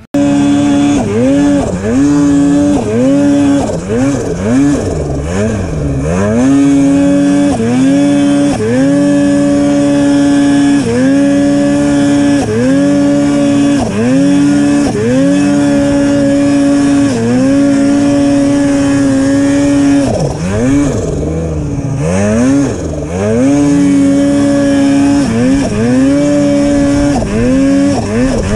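Snowmobile engine run hard under throttle, heard from the rider's seat. Again and again the pitch drops briefly as the throttle is eased and then climbs back up to a high, steady pitch held for a few seconds.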